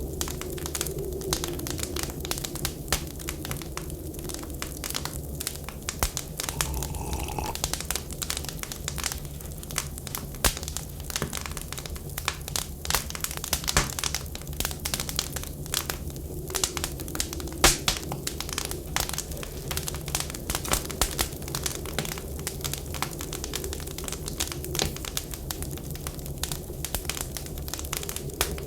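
Wood fire crackling and popping in quick, irregular clicks, over a steady low rumble and a wind whistle that rises and falls.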